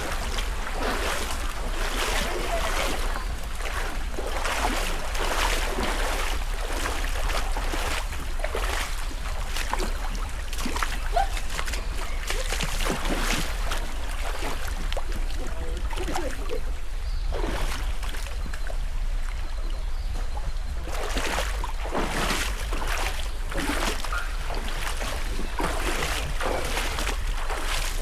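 Water splashing and sloshing in irregular surges as people wade through a stream, over a steady low rumble.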